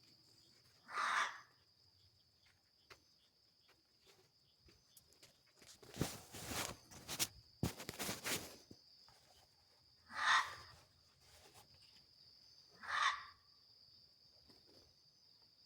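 An unseen animal at night giving three short, loud, noisy calls: one near the start, then two a few seconds apart later on. They sound over a steady high-pitched insect trill, with a couple of seconds of rustling and clicks in the middle.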